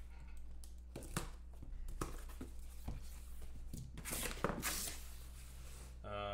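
A cardboard shipping case being opened by hand: packing tape tearing and the cardboard flaps pulled apart, in several short rustling, tearing bursts, the biggest about four seconds in. A brief low hum comes near the end.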